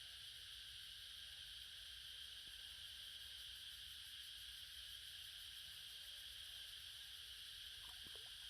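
Faint, steady high hiss with no distinct events.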